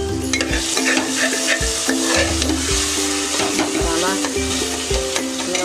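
Onion-tomato masala sizzling and frying in an aluminium pressure cooker as a metal slotted spoon stirs it and scrapes the pot. Background music with a steady beat runs underneath.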